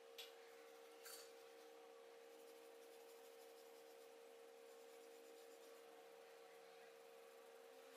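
Faint scratching of a coloured pencil shading on paper, over a steady low hum, with two light clicks near the start.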